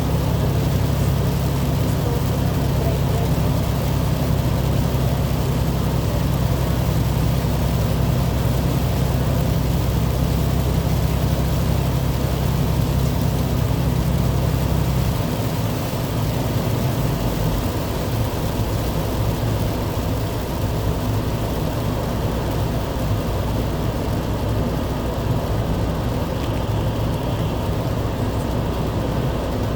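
A motor vehicle's engine running steadily with road noise; its low hum shifts about halfway through.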